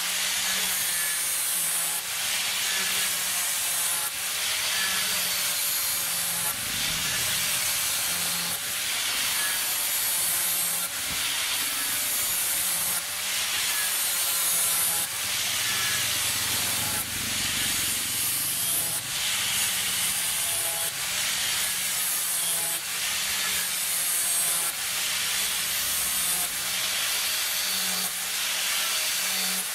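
INGCO angle grinder with a sanding disc shaping a wooden hammer handle: the motor runs steadily while the disc rasps on the wood in repeated strokes about once a second.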